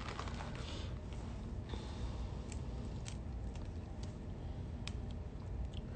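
Handling and eating seafood: small scattered clicks and crackles over a steady low hum.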